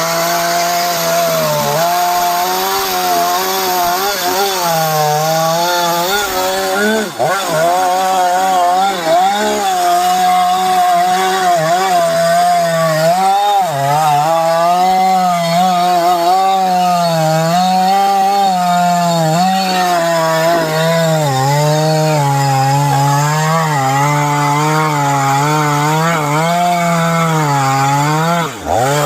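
Chainsaw running under load, cutting through wood. Its engine pitch wavers up and down as it bites, with brief dips about seven seconds in and near the end.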